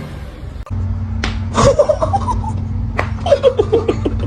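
Several sharp slaps or smacks, each followed by a run of short bursts of a person's laughter, over a steady low hum.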